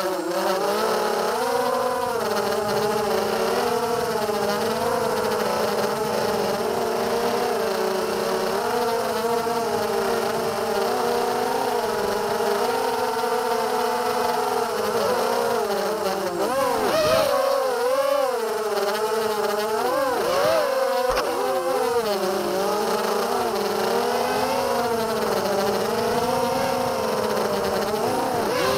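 The four DYS BE1806 2300KV brushless motors and HQ 5040 propellers of a 250-size FPV racing quadcopter, heard from its onboard camera, making a steady buzzing whine. The pitch rises and falls with the throttle, swinging more sharply a little past the middle.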